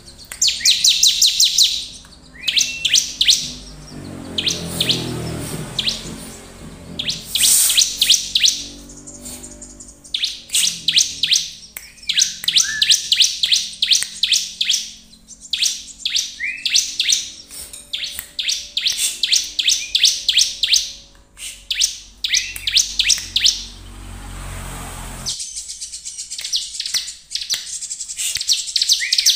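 Bar-winged prinia (ciblek) singing energetically: rapid runs of sharp, high chirping notes in repeated phrases separated by short pauses. This is the 'gacor' song used to provoke other ciblek into singing.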